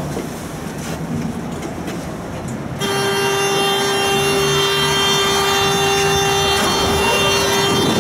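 Tram door-closing warning buzzer: a steady pitched buzz that starts about three seconds in and cuts off sharply near the end, over the low hum of the stopped tram.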